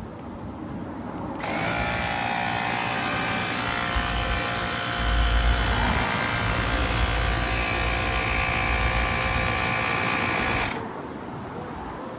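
Small portable electric pump running steadily for about nine seconds, inflating a new bicycle inner tube, then switched off.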